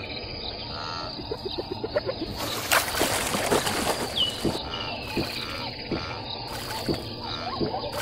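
Savanna nature ambience: birds calling, including a whistled call that falls in pitch and repeats every few seconds, over a steady background with scattered soft ticks. A brief rushing noise, the loudest sound, comes about two and a half seconds in.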